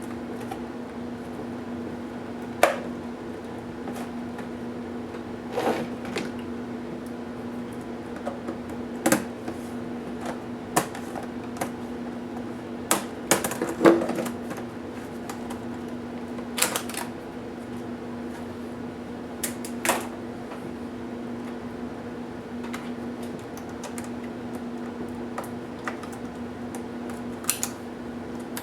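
Irregular clicks and knocks of plastic laptop parts and small tools being handled while a Toshiba P755 laptop is taken apart, over a steady low hum.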